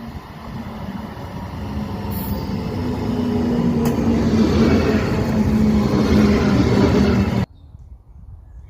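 A motor growing steadily louder as it comes closer, a low steady note over rushing noise, cut off suddenly near the end.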